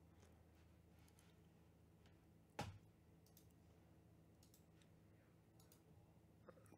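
Near silence: room tone with a faint steady low hum, broken by one sharp click about two and a half seconds in and a few fainter ticks.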